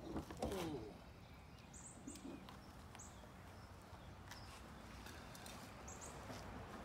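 Faint outdoor ambience: a few very short, high bird chirps and scattered light footsteps on pavement. A brief falling pitched sound near the start is the loudest moment.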